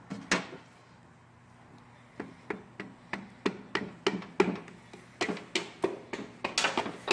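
A hammer tapping a piston, squeezed in a ring compressor, into the cylinder bore of a Hyundai 2.0 engine block. One knock comes near the start, then after a pause a steady run of taps, about three a second.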